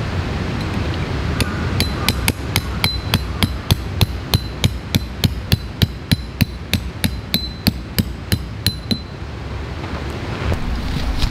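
A metal tent peg being hammered into gravelly ground: a steady run of about two dozen sharp metal-on-metal strikes, three or four a second, each with a short ringing ping. The strikes start about a second and a half in and stop near the end.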